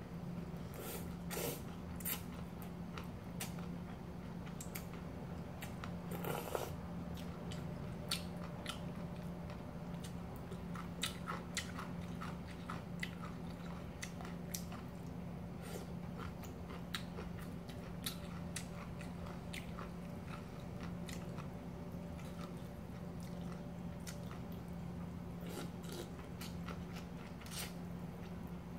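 Close-up sounds of a person eating cold kimchi noodle soup: wet chewing with scattered small clicks and a few longer noodle slurps. A steady low hum runs underneath.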